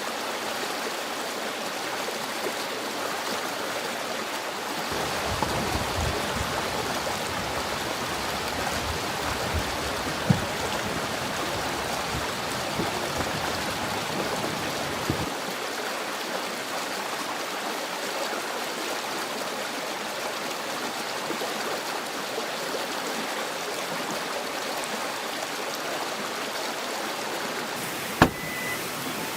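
A stream running steadily over rocks. There is a low rumble from about five to fifteen seconds in, a click about ten seconds in, and a sharper click near the end.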